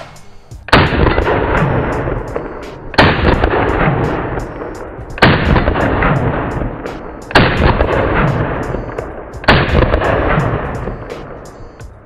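Five shots from a Genesis Arms Gen 12 semi-automatic 12-gauge shotgun firing buckshot, about two seconds apart. Each shot is followed by a long echo that fades out before the next.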